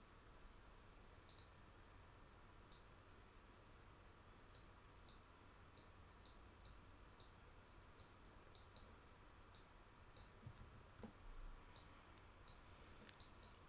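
Faint computer mouse button clicks, about twenty at irregular intervals, over near-silent room tone, as the mouse drives a sculpting brush and rotates the model.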